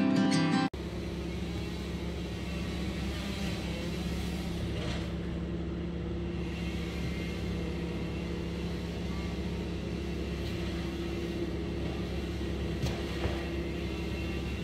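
A short bit of acoustic guitar music that cuts off under a second in, then a tow-behind wood chipper's engine running steadily with a constant low hum, with a few faint knocks.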